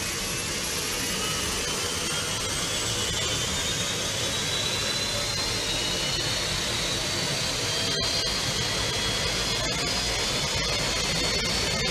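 Soundtrack of a promotional aircraft video: a steady rushing noise like a jet turbine, with thin whistling tones that slowly rise and fall.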